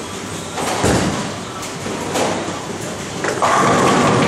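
Tenpin bowling ball released and landing on the wooden lane with a deep thud about a second in, then rolling. Near the end comes a loud, drawn-out clatter of pins being struck, echoing in the large hall.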